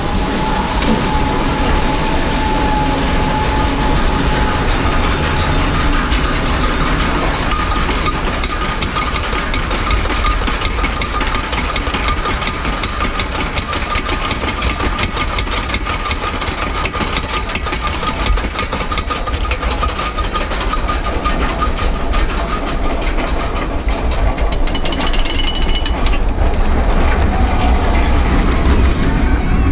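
Suspended roller coaster train being hauled up its chain lift hill: a rapid clattering of the lift chain and ratchet with a steady whine. The clatter stops near the end.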